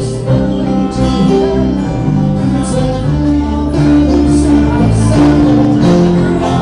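Music: a band's song with guitar, playing steadily.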